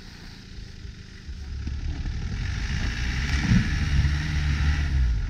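A Land Rover Defender's engine pulling hard through deep snow close by, growing louder from about a second in, with a hiss over the top in the louder part.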